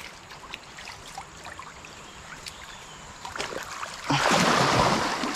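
Floodwater trickling with small scattered splashes, then from about four seconds in loud sloshing and splashing as a man wades waist- to chest-deep through the stream.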